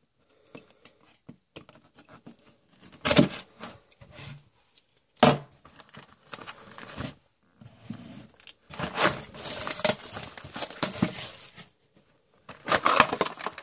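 A sealed hockey card hobby box being torn open and handled: plastic wrap tearing and crinkling, cardboard rustling, with two sharp knocks about three and five seconds in.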